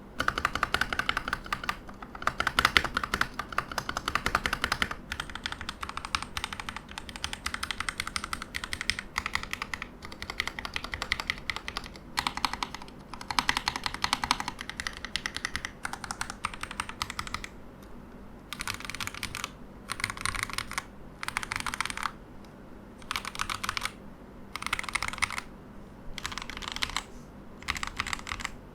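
Typing on a Keydous NJ80 mechanical keyboard with Gateron Pro Yellow linear switches, a steel plate and PBT keycaps. Fast continuous keystrokes for about twelve seconds, then short bursts of typing with brief pauses between them.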